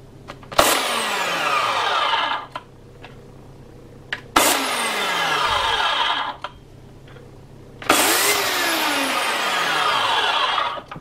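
DEDRA DED8701 2200 W electric chainsaw run with no load three times, in short bursts of about two seconds each, starting sharply and cutting off abruptly as the trigger is pressed and released. It is a brief dry test: the chain is spinning without any bar oil yet.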